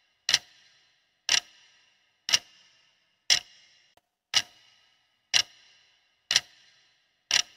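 Clock-ticking sound effect counting down a quiz timer: one sharp tick each second, eight in all, each with a short ringing tail. A quick run of rapid clicks comes right at the end.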